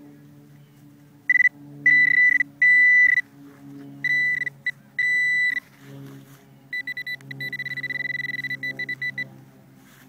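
Metal detector sounding a high, steady-pitched beep: several beeps of uneven length, then about a second later a fast pulsing beep lasting a couple of seconds. It is signalling a metal target still in the dug hole.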